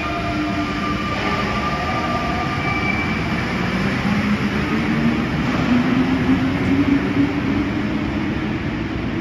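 Rubber-tyred Paris Métro line 14 train pulling out of the station over a continuous rumble. Its motor whine rises in pitch as it picks up speed, loudest about six to seven seconds in.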